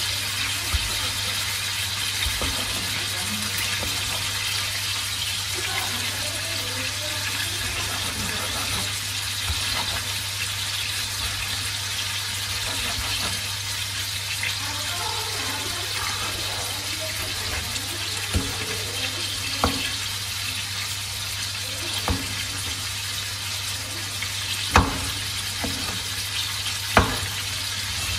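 Cleaver chopping tomato on a wooden cutting board: a handful of sharp knocks, mostly in the second half, over a steady hiss and a low hum.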